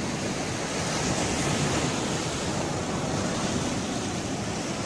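Sea surf washing and foaming over rocks along a rocky shoreline, a steady rush of breaking waves.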